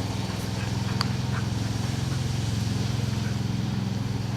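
Lawn mower engine running steadily at a constant speed, its pitch unchanging, with a faint click about a second in.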